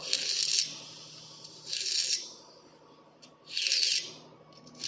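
A steel file pushed across the tooth tips of a thin saw blade cut from an old wall clock's mainspring: four short rasping strokes, one about every second and a half, sharpening the teeth.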